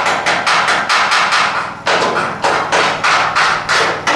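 Rapid hand-hammer blows, about six strikes a second, with a short pause just under two seconds in before the strikes resume slightly slower, over a steady low hum.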